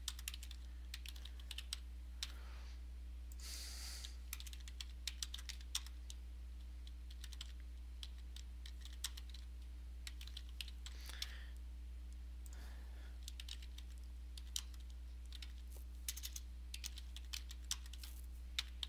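Typing on a computer keyboard: irregular runs of key clicks with short pauses, over a steady low hum.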